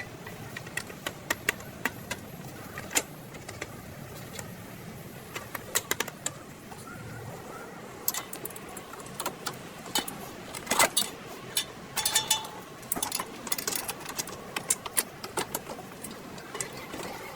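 Metal tools and brake parts clinking and clicking as they are handled, in many short sharp strikes, a few of them ringing briefly, over a steady low hum.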